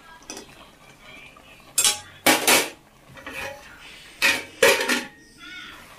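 Metal ladle stirring in a metal wok of boiling greens and knocking against its side: a run of sharp metallic clanks, loudest in clusters about two seconds and four and a half seconds in.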